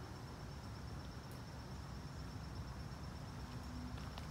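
Insects, likely crickets, trilling steadily in one high, unbroken pitch over a low rumble of outdoor background noise.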